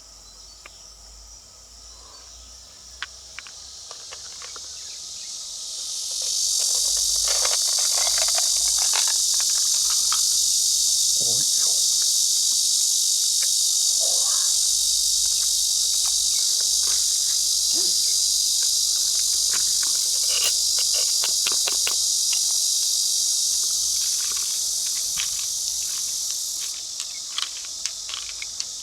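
Loud, steady, high-pitched insect chorus that swells in over the first few seconds, holds, then eases a little near the end, with scattered light clicks and taps over it.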